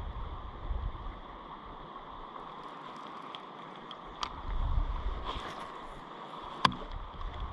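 Flowing river water with gusts of wind buffeting the microphone, and a single sharp knock a little over two-thirds of the way through.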